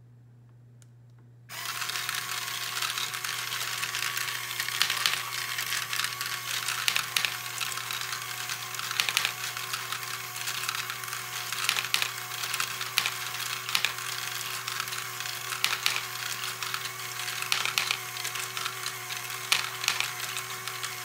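A LEGO ball-contraption module switching on about a second and a half in: its small electric motor runs with a steady whirring hum while the plastic lift and gears click and clatter, and small plastic balls rattle through the mechanism.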